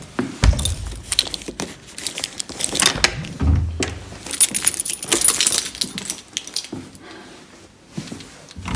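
A bunch of keys jangling and clinking as they are handled, in irregular bursts, with a couple of dull knocks.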